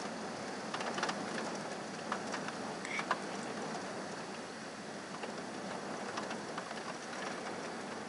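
Heavy thunderstorm rain falling as a steady hiss, with scattered sharp ticks of drops striking a nearby surface, most of them in the first three seconds.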